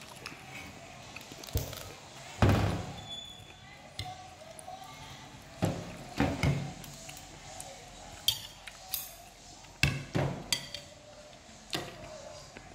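Scattered knocks and clinks of plates and metal utensils on a glass-topped table, the loudest a dull thump a couple of seconds in, with a few ringing clinks later on.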